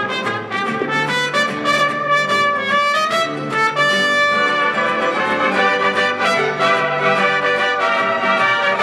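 Mariachi ensemble playing an instrumental passage led by its trumpet section, over a steady, bouncing bass line.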